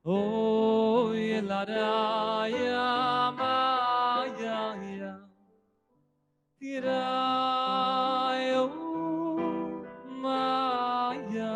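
A man singing a slow, wordless melody on vocal syllables, in long held phrases with vibrato and a short break of about a second midway.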